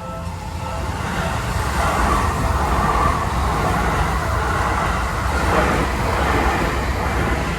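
Japanese commuter-line electric train passing through a level crossing: a broad rush of wheels on rail that swells within the first two seconds, holds, and starts to ease near the end. The crossing's warning bell, ringing in an even repeating pattern, is heard at the start and is then drowned out by the train.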